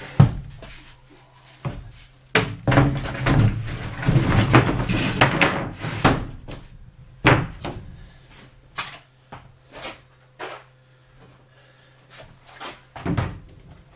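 A string of thuds, knocks and clatter as someone moves about inside the bus and handles things, with a busier stretch of rattling a few seconds in, over a faint steady low hum.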